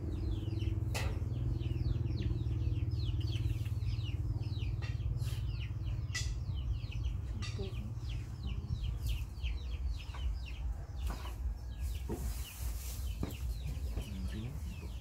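Chicks peeping: many short falling chirps, several a second, over a steady low hum.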